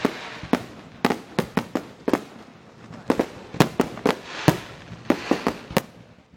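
A fireworks display going off: a rapid, irregular string of sharp bangs, about fifteen in six seconds, some close together in quick clusters.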